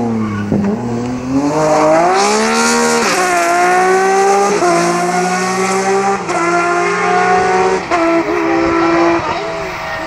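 BMW E46 3 Series coupe rally car engine. It drops in pitch as the car slows for a corner, then accelerates hard away with several quick upshifts, and fades near the end as the car drives off.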